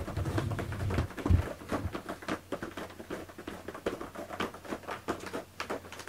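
Cat rustling and pawing among cushions, with irregular light scratching clicks and a few low thumps in the first second and a half.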